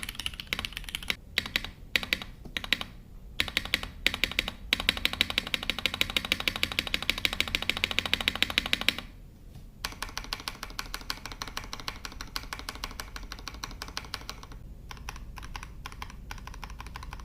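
Typing on a Foxlab F80SE V2 top-mount mechanical keyboard with fully modded Cherry Hyperglide Black linear switches, an aluminium plate with plate foam, and PBT keycaps: a clacky keystroke sound. The strokes come fast and even for a few seconds mid-way, stop briefly about nine seconds in, then carry on as steady typing.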